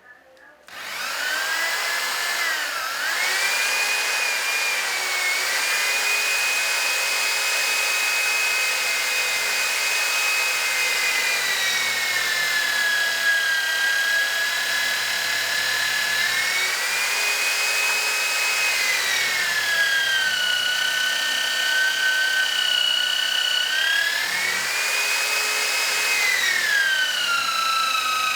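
Electric drill motor starting about a second in and running at high speed with a steady whine, the pitch sagging and recovering several times as it comes under load.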